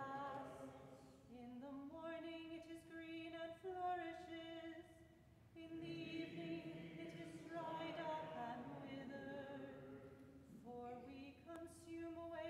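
Unaccompanied psalm chant sung by a woman: each line is held on one reciting note and steps to other notes at the ends of phrases, with short breaks for breath about five seconds in and again near ten seconds.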